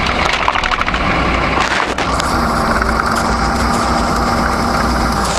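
Military vehicle driving: steady engine and road noise with rattles and clicks, and a steady hum that joins about two seconds in.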